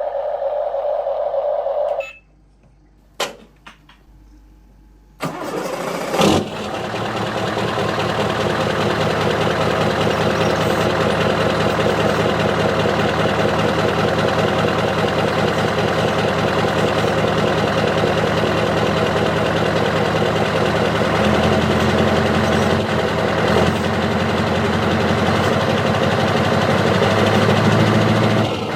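An RC model construction machine, an excavator or mini tractor, starting up about five seconds in and then running steadily with an engine-like sound that gets deeper and heavier about two-thirds of the way through. Before it, a steady whine cuts off about two seconds in, followed by a few clicks.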